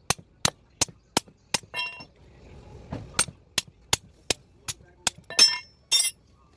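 Hammer blows on metal, struck at an even pace of about three a second: a run of five, a pause of about a second and a half, then another run of about seven, a few strikes ringing.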